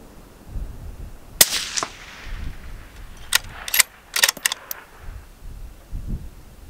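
A single rifle shot from a Ruger American Gen II bolt-action rifle in .223 Rem about a second and a half in, echoing briefly. It is followed, about two seconds later, by a quick run of sharp metallic clicks as the bolt is worked to chamber the next round.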